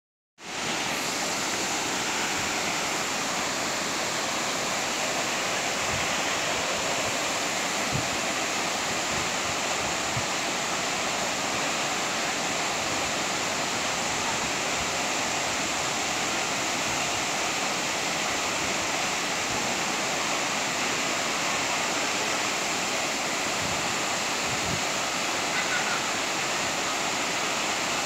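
Steady rush of a tall waterfall's falling water, starting about half a second in.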